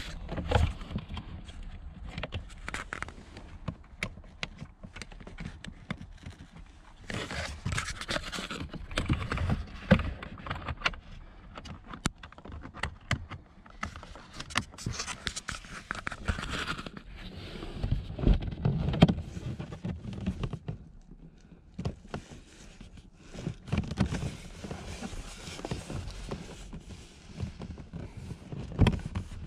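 Plastic cabin air filter housing and filter of a Mercedes-Benz SLK (R172) being handled by hand: irregular scraping, rustling and clicking of plastic parts as the cover and filter are worked free.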